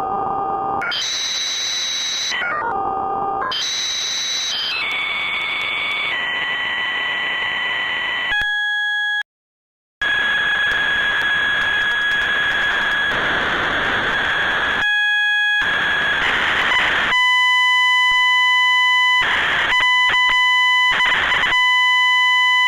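Computer-generated sonification of the Mandelbrot set: harsh, buzzing electronic tones over hiss. Early on the tones sweep down and back up in pitch; later they hold and jump between pitches in abrupt blocks, with a sudden break to silence about nine seconds in.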